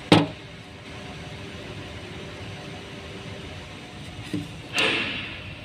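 Small plastic fuel pump module parts being handled: a sharp click just after the start, then a small knock and a short scraping rattle near the end, over a steady background hum.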